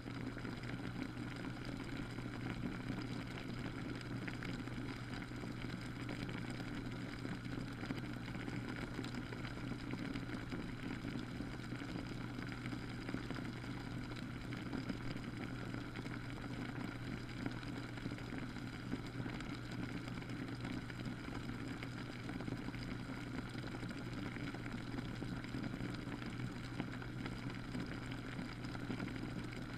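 Humidifier running steadily: an even low hum with a faint hiss over it, unchanging throughout.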